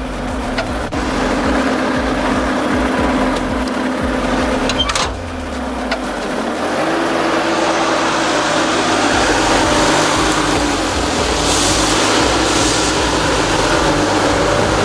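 Bobcat 773 skid steer loader's diesel engine running under load as it works, with a few sharp clicks early on. Its note changes about six to seven seconds in.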